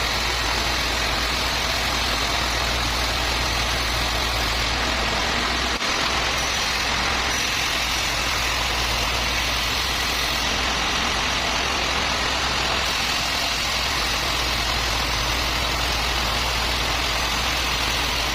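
Sawmill machinery running steadily with an engine-like hum, with one brief dip about six seconds in.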